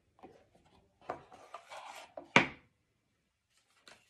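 Small wooden box being handled: its wooden lid rubbed and slid, with paper rustling, then one sharp wooden knock about two and a half seconds in, and a faint click near the end.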